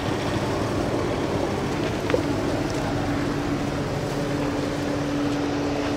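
A motor running steadily, with a steady hum coming in about three seconds in and a single short click about two seconds in.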